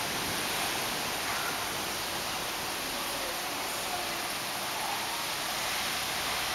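Steady rushing, hissing water noise from a large aquarium's air bubblers and water circulation.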